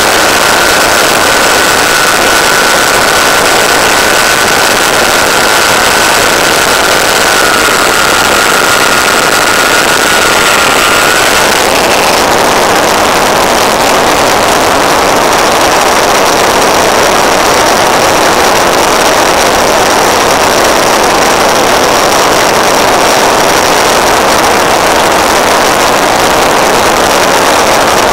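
Electric motor, propeller and rushing air of an EasyGlider RC plane under power, picked up by its onboard FPV microphone: a loud, steady rushing hiss. A thin whine runs through it and changes pitch about twelve seconds in.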